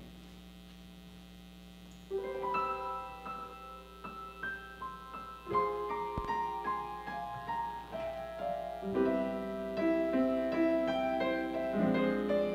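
A steady electrical hum, then about two seconds in a piano starts playing: slow single notes that fill out into fuller chords with a lower part near the end.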